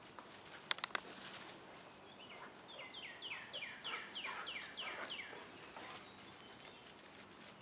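A bird calling a quick series of about eight identical downslurred notes in the middle, over faint rustling and pattering of dogs moving about on the ground, with a few sharp clicks about a second in.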